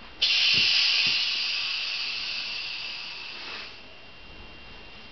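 Compressed air hissing in a pneumatic load-test cylinder at the 5-bar (231 kg) step. The hiss starts suddenly about a quarter-second in, fades slowly and cuts off a little under four seconds later, with two faint knocks near its start.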